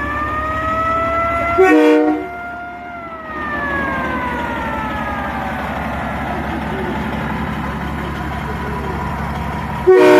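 Fire truck siren winding up, then slowly winding down over several seconds, over a low engine rumble. A short air horn blast comes about two seconds in, and another right at the end.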